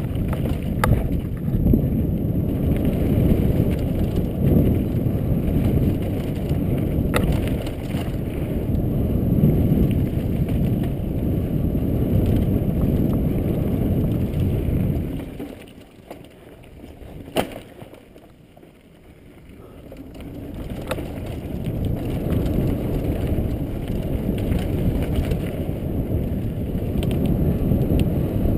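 Mountain bike descending a dirt trail: a dense low rumble of wind on the microphone and tyres on dirt, with scattered clicks and rattles from the bike. About halfway through it drops away for a few seconds, with one sharp click, then builds again.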